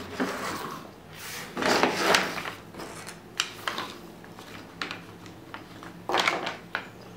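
Small freshly cut wooden frame end bars being swept together by hand on a metal table saw top: scraping slides and a scatter of light wooden clicks and knocks.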